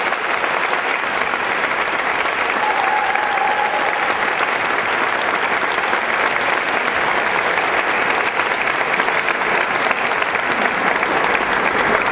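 Audience applauding: a roomful of people clapping steadily and evenly.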